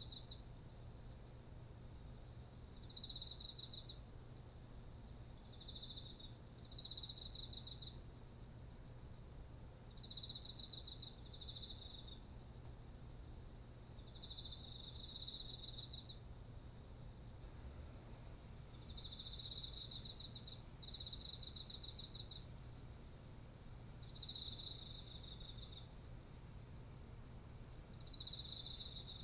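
A chorus of autumn insects, such as crickets, singing: one continuous very high trill runs under repeated pulsing trills, each a few seconds long with short breaks between, and shorter chirping phrases a little lower in pitch.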